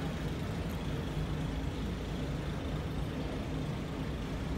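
Twin inboard engines of a 2001 Carver 444 motor yacht idling steadily at about 530 rpm, freshly started from cold.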